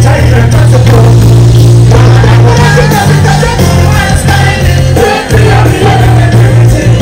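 Loud live band music with singing, a heavy bass line holding long notes under the vocals, with drums.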